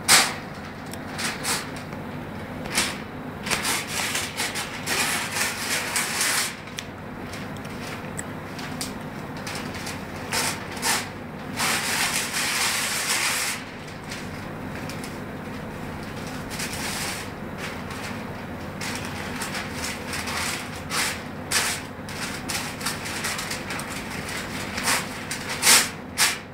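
Sheets of newsprint rustling, crackling and being torn into strips, with a longer tear about halfway through. Then the torn pieces are handled and folded, crackling.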